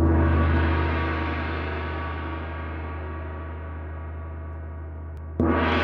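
Two deep gong strikes in intro music, each ringing with many overtones and fading slowly; the second strike comes about five and a half seconds in.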